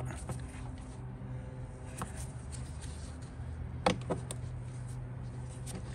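Plastic air filter housing lid being handled and pressed into place, making a few light clicks and knocks, with a louder double knock about four seconds in, over a steady low hum.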